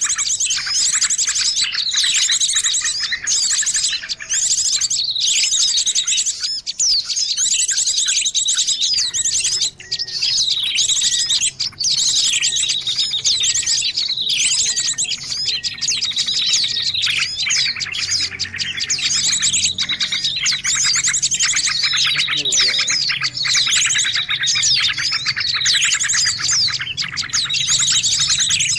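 Small songbirds chirping and trilling rapidly and without pause, many short calls overlapping.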